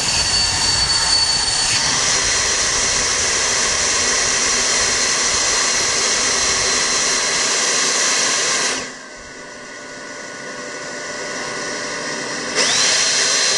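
Black Diamond Jetforce avalanche airbag's battery-powered fan spinning up with a rising whine and running loudly for about nine seconds, inflating the airbag. It then drops away, and near the end spins up again to top the bag up, cycling to keep it inflated.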